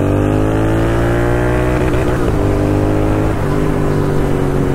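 Royal Enfield Continental GT 650's 648 cc parallel-twin engine pulling under throttle. Its pitch climbs over the first two seconds, then dips briefly about two seconds in and again a little over three seconds in as it shifts up.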